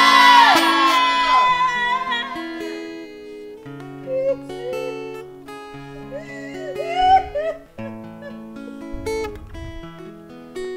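A congregation's shouting and cheering dies away over the first couple of seconds. After that comes soft instrumental church background music of slow, held chords.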